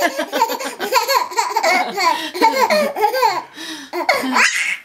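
Baby laughing hard in long runs of quick, repeated belly-laugh syllables, several a second, ending in a rising squeal shortly before the end.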